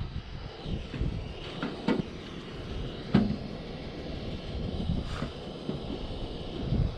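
Propane-fed soldering iron's burner hissing steadily while tin solder is run along a zinc gutter seam, with a few sharp clicks of the iron and solder stick against the zinc.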